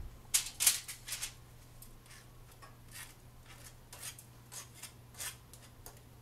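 Metal offset spatula spreading mayonnaise across a sandwich bun: a series of short scraping swishes, loudest in the first second, then lighter strokes.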